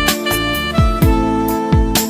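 Instrumental music with a steady beat: a deep kick drum about twice a second under held melody notes.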